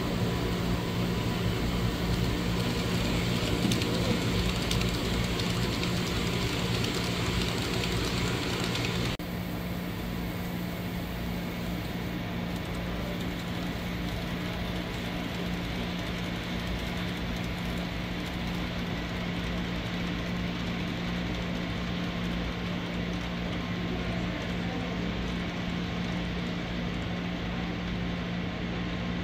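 Model train running on layout track: a steady rolling noise with a constant hum. The hiss drops off suddenly about nine seconds in.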